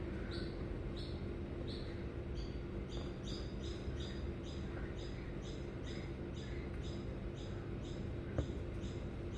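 Rapid, evenly repeated high chirps, about three a second, like a small bird calling, becoming steady a few seconds in over a low steady hum.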